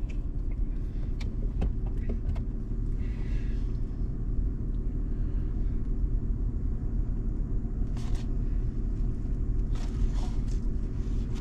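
Steady low mechanical drone made of even, unchanging tones, with a few faint clicks and rustles of handling on top.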